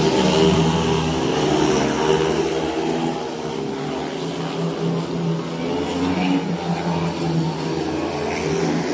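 Speedway motorcycles racing round the track, their 500 cc single-cylinder methanol engines giving a steady engine note that eases off slightly about three seconds in.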